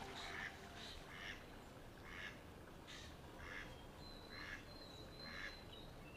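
Mallard quacking faintly, a run of short calls at roughly two a second.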